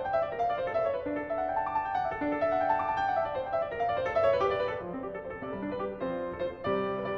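Steinway & Sons concert grand piano playing a brisk classical piece in a quick run of separate notes in the middle and upper register, with lower notes coming in under them about five seconds in.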